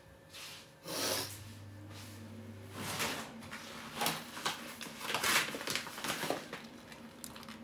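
Clear plastic bag of white rice rustling and crinkling as it is picked up and handled, in a string of uneven rustles.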